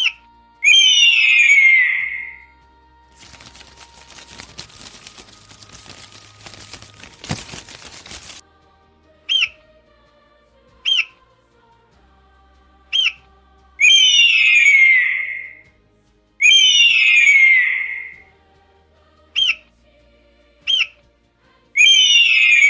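Bird calls repeating in a pattern: short, clipped rising notes, singly or in pairs, alternating with longer harsh squawks that slide downward in pitch. A stretch of rustling noise comes in about three seconds in and stops abruptly near eight seconds.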